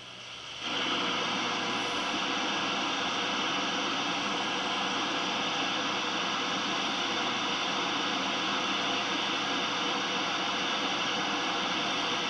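Shortwave static from a Hallicrafters S-20R Sky Champion receiver's speaker: a steady hiss that comes up about half a second in as the audio gain is turned up. It holds even while the band spread knob is turned, with no station coming through on a poor band.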